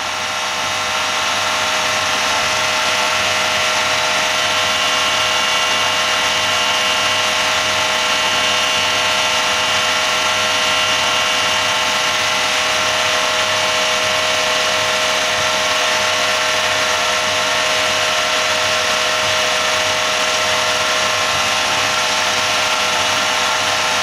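Zanussi washer dryer in its drying test: the drying fan motor running with a steady whine over a broad hiss, a fan motor the owner knows to be noisy, while the drum motor turns the drum.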